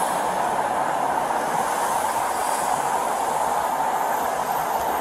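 Steady interstate traffic noise, tyres rolling on pavement in an even, unbroken roar with no distinct events.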